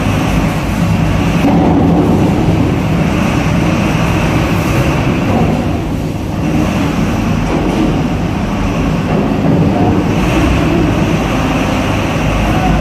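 Heavy diesel engine of the vehicle moving the lowbed trailer, running loud and steady under load, with a brief dip about six seconds in.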